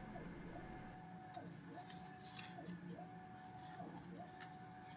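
Faint whine of a 3D printer's stepper motors as the print head moves back and forth. Each pass is a steady tone that slides up as the head speeds up and down as it slows, repeating about every second and a bit, with a few faint clicks.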